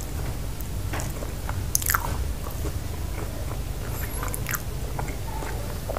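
Close-miked chewing of a mouthful of chicken pizza, with moist mouth clicks and crunches of crust; the loudest crunch comes about two seconds in. A steady low hum runs underneath.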